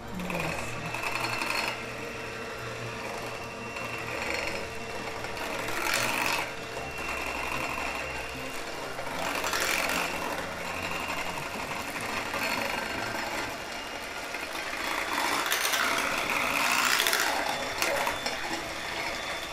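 Electric hand mixer running steadily, its beaters whisking cake batter in a glass jug. It swells louder for a moment every few seconds.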